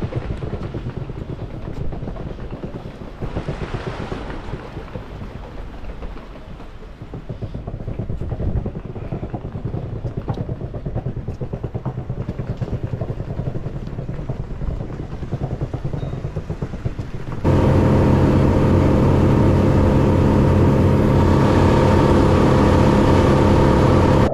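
A motor engine running, mixed with rough noise at first. About 17 seconds in it suddenly becomes a much louder, steady engine drone that holds to the end.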